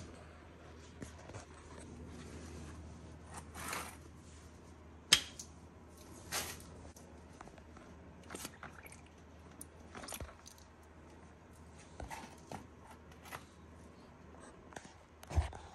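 Scattered clicks, taps and light scrapes of handling around a plastic tub, with one sharp click about five seconds in and two more near the end, over a low steady hum.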